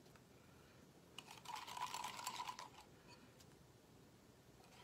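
Faint light clicks and scraping of a knife against a ceramic bowl as thick chocolate sauce is scraped out, starting about a second in and lasting about a second and a half.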